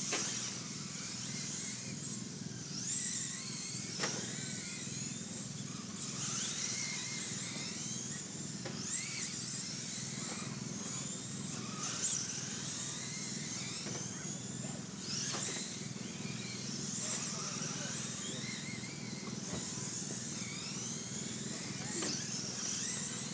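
Radio-controlled race cars lapping a dirt oval: a pack of high-pitched motor whines that keep rising and falling as the cars accelerate, lift and pass by.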